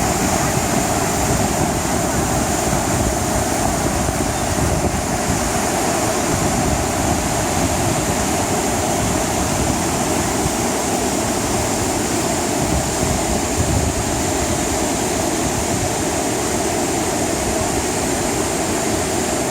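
Waterfall: a steady rush of water pouring and splashing over rock.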